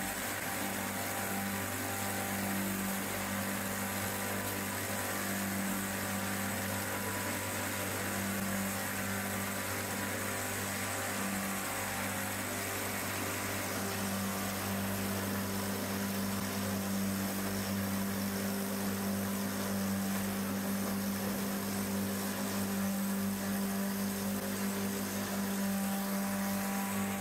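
Woodlandia LL-41.600 log lathe rounding a raw bark log into a dowel. Its electric milling motor runs steadily with a low hum while the cutter chips away the wood as the carriage travels along the log.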